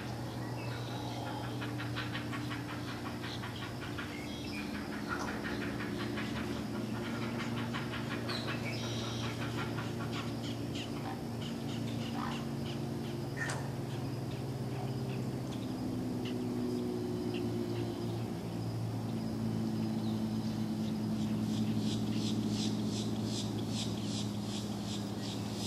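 Birds calling, with scattered short chirps over a steady low hum. In the last few seconds there is a fast, even run of high clicking calls.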